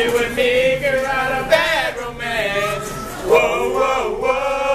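Male a cappella group singing together, several voices and no instruments.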